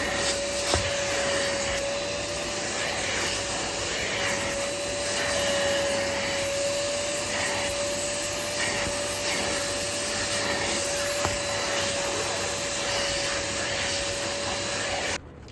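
Kiwi seat-washing machine, an upholstery spray-extraction cleaner, running its suction motor with a steady whine over a rushing air noise. It is switched off abruptly near the end.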